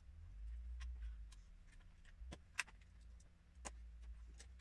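Faint clicking and rattling of small plastic LEGO bricks being fitted together and handled: a scattering of sharp clicks, the loudest about halfway through, over a low rumble.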